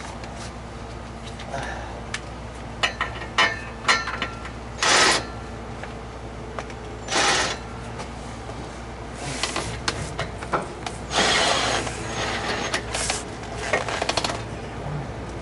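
Hand work on a car's exhaust system: scattered metal clinks and knocks with several short scraping and rubbing sounds as parts and tools are handled.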